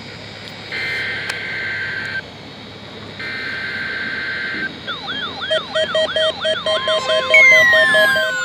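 NOAA Weather Radio SAME header: two bursts of shrill warbling data tones, each about a second and a half long, marking the start of a weekly test alert. About five seconds in, weather alert radios set off their alarms: fast repeating chirps, a pulsing beep and a steady tone, with falling glides near the end.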